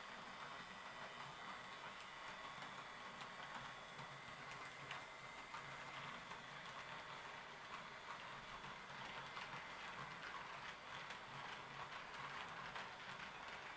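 HO-scale model train running on the layout's track: faint, rapid clicking of wheels over rail joints, denser in the second half, with a thin steady whine behind it.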